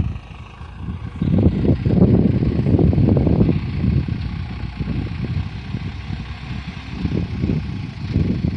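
JCB Loadall telehandler's diesel engine running as the machine moves off, louder from about a second in, with wind rumbling on the microphone.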